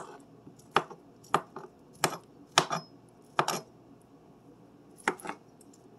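Kitchen knife chopping canned chicken on a cutting board: about seven sharp, irregularly spaced knocks, with a pause of more than a second near the end.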